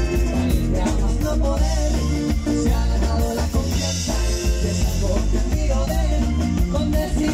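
Live norteño band playing: button accordion, electric bass, acoustic guitar and drum kit, with a singer on the microphone.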